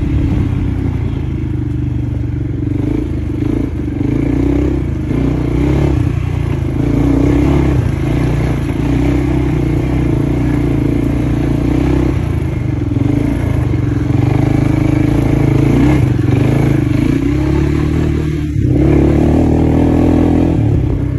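Quad bike (ATV) engine running under the rider on a dirt trail, its note rising and falling with the throttle, easing off briefly about three-quarters of the way through.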